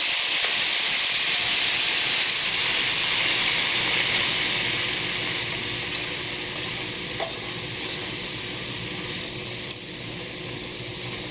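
Water sizzling and hissing as it hits a hot stainless steel skillet of broccoli and onions, the sizzle slowly dying down. From about six seconds in, a few short clicks come from a utensil stirring against the pan.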